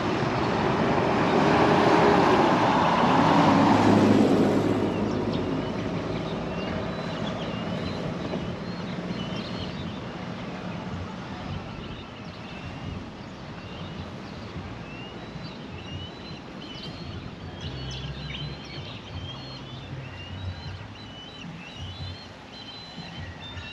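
A vehicle passes close, its engine noise falling in pitch and fading away within the first few seconds. Then birds chirp repeatedly over a quiet rural background, with a faint low rumble near the end.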